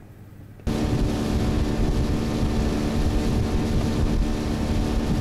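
Outboard motor on an inflatable boat running steadily under way. It cuts in abruptly about a second in, with a steady rushing noise beneath the motor's hum.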